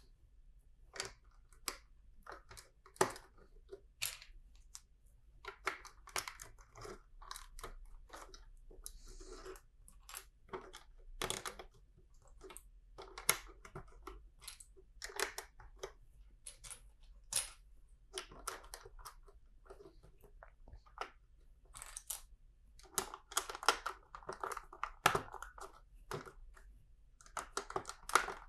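Vintage LEGO plastic pieces being handled and pressed together: scattered sharp clicks and snaps, with a few short spells of loose pieces rattling as parts are picked out.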